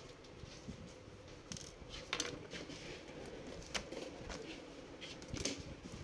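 A few faint, scattered clicks and scrapes of a screwdriver undoing the screws of an HP ProBook 430 laptop's bottom service panel and the cover being lifted off.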